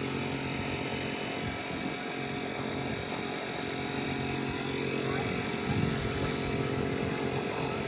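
Bostitch air compressor running steadily, an even motor hum with no breaks.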